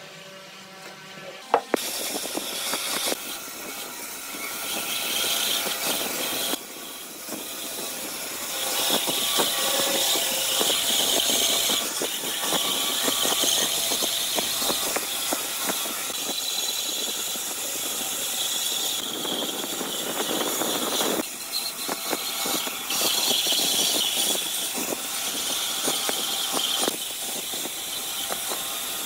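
Woodworking power tools running on wood, a steady hissing, grinding noise with a high squealing edge and many small ticks. It changes abruptly several times as one machine gives way to another.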